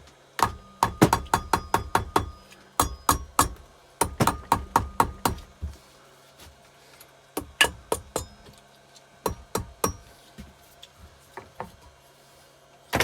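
Quick runs of sharp hammer taps, several a second, with a short metallic ring, then a few single taps near the end. The taps are on an aluminium motorcycle cylinder head to free it from corroded dowels.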